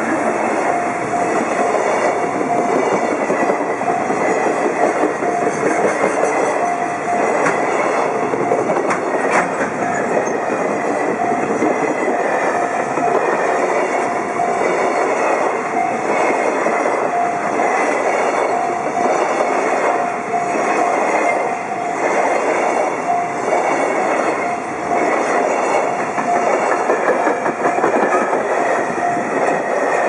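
A JR Freight container train rolls slowly through a level crossing, its wagon wheels clacking over the rail joints. Over the train noise, the crossing's warning bell dings steadily and repeatedly.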